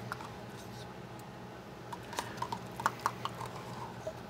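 Metal spoon scraping and clicking against the inside of a tin of tomato paste: a scatter of light, sharp clicks, most of them from about two seconds in, over a faint steady hum.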